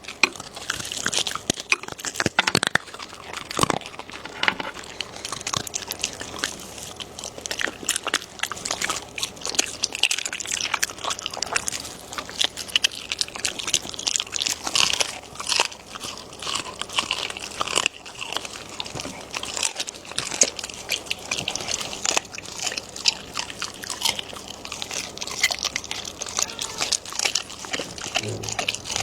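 A dog chewing and crunching its food close to the microphone: a steady, irregular run of crisp bites and wet chewing clicks.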